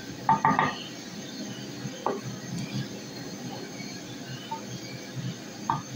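Wooden spoon stirring thick masala gravy in an aluminium pot, knocking against the metal: a quick cluster of knocks about half a second in, another about two seconds in and one near the end, each with a short ring, over a steady low background noise.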